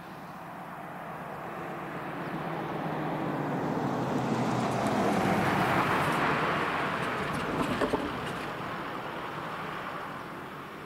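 A car driving past, its tyre and road noise swelling to a peak about halfway through and then fading as it drives away. A quick run of sharp thumps comes near the end of the pass, as its wheels cross the rails.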